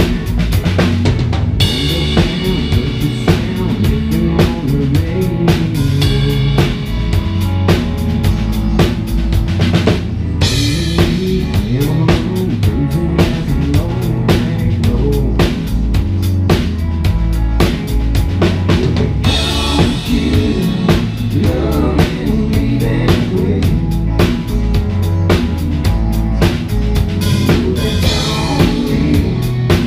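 Live rock band playing an instrumental passage: a drum kit with bass drum and snare keeping a steady beat under guitar.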